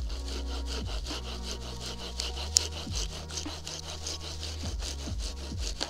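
Bahco Laplander folding saw cutting through a wooden branch with quick, even back-and-forth strokes, its teeth rasping through the wood on both the push and the pull. A single sharp click stands out about two and a half seconds in.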